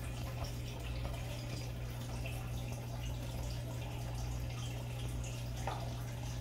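Aquarium water trickling and dripping over a steady low hum, with one small tap about five and a half seconds in.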